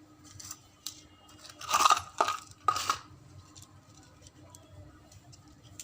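Handling noise of small hard objects on a workbench: a few light clicks, then a short cluster of metallic clinks and knocks about two seconds in.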